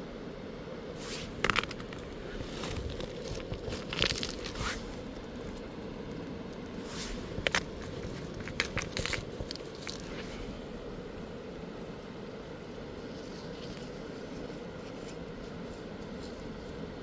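Stones crunching and scraping on river gravel as rocks are picked up and handled. A handful of sharp clicks and knocks fall between about one and ten seconds in, over a steady rushing background.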